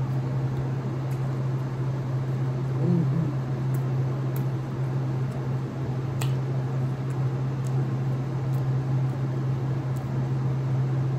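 Steady low hum under close, quiet eating sounds: a few faint mouth clicks, and a brief soft 'mm' about three seconds in.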